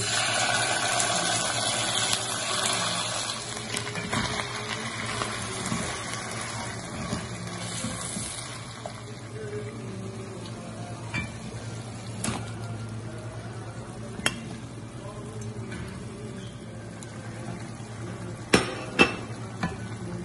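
Hot oil sizzling loudly as ginger-garlic paste is stirred into fried onions in a cast-iron pot, dying down after a few seconds to a quieter steady frying. A few sharp knocks of kitchenware against the pot follow later, two loud ones close together near the end.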